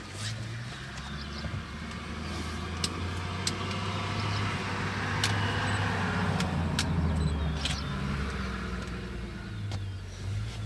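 A vehicle engine idling steadily with a low hum, with a few sharp clicks and short bird chirps over it.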